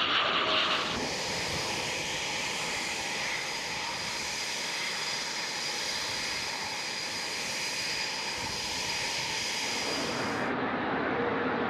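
Eurofighter Typhoon's twin jet engines: a loud rush as the fighter lands, giving way about a second in to a steady high whine with hiss as it taxis. The whine cuts off abruptly near the end, leaving a duller rushing noise.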